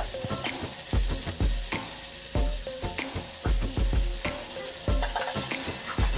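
Margarine sizzling as it melts in the bottom of an aluminium pot, stirred and scraped around with a metal spoon.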